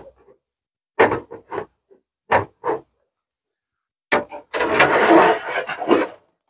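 Handling noise as the camera is picked up and repositioned: a few short knocks and rubs, then a longer stretch of rustling and scraping near the end.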